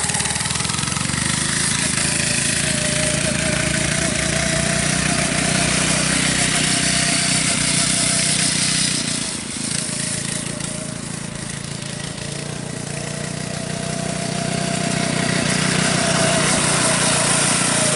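Monster Moto MM-K80 go-kart's small single-cylinder four-stroke engine running steadily as the kart drives across grass. It grows fainter about halfway through, then louder again near the end.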